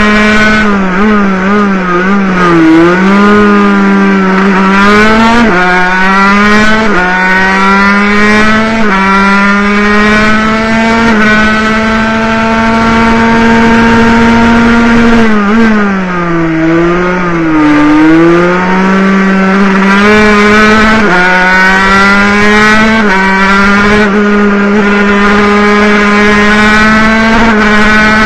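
Water-cooled 50cc two-stroke racing motorcycle engine running at high revs, heard onboard. Its pitch climbs and drops sharply with each upshift, and falls and recovers twice as the bike slows for corners.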